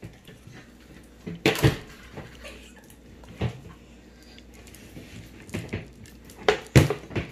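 Scattered knocks and clinks of bowls, bottles and stirring sticks being handled on a tabletop while slime is mixed: short separate taps with quiet gaps, a louder cluster about a second and a half in and another near the end.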